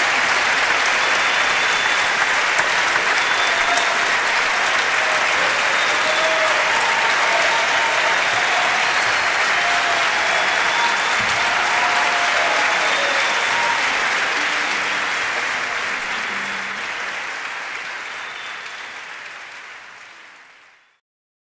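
A large concert audience applauding steadily, with a few voices calling out over the clapping. The applause fades out over the last several seconds.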